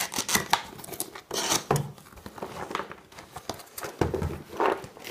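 A cardboard box being opened by hand: the cardboard flaps and lid scraping, rubbing and crinkling in a string of irregular rustles, with some tearing sounds.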